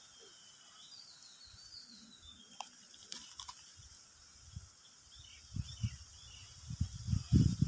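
Quiet outdoor ambience with small birds chirping faintly and a few soft clicks. In the last couple of seconds a run of low, rumbling bursts grows loud.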